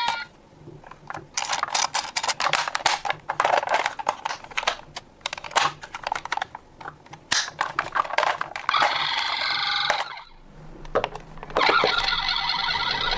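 Rapid small plastic clicks and clacks as a toy ambulance is handled and its side door opened and shut. About two-thirds through, the toy's electronic sound module plays briefly, and it starts again near the end as the toy's headlight lights up.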